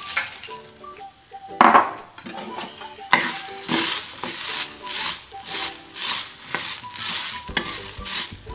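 A steel ladle stirring mung beans (green gram) as they dry-roast in a hot pan, the beans rattling and scraping across the pan about twice a second. There is one sharp knock about one and a half seconds in.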